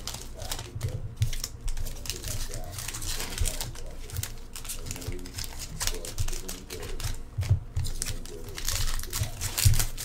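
Foil hockey card pack wrappers crinkling and tearing as packs are opened, mixed with quick irregular clicks of cards being handled and flicked through.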